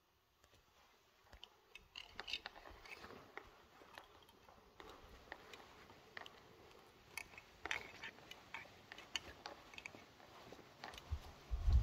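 Irregular footsteps and light taps of someone walking across a church's stone floor, getting louder after about two seconds. A low rumble comes in near the end.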